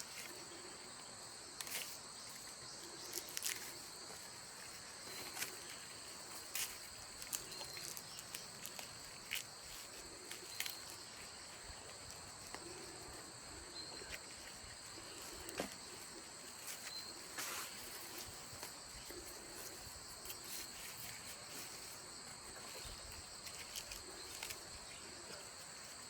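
Insects chirring steadily at a high, even pitch, with scattered sharp clicks and soft rustles close by.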